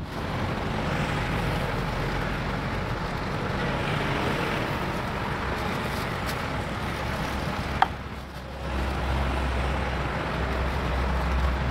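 Steady street traffic noise with a low engine hum that grows stronger about two-thirds of the way through. A single sharp tap about eight seconds in.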